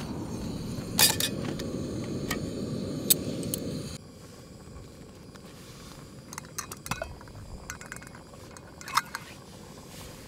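Camping gear being handled: scattered small metallic clinks and clicks, with a steady low rushing noise for the first four seconds that cuts off suddenly.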